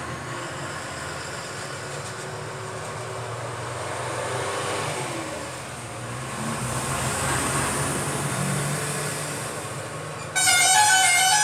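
Steady background rumble and hiss with a low hum. About ten seconds in, music with stacked sustained tones cuts in suddenly and loudly.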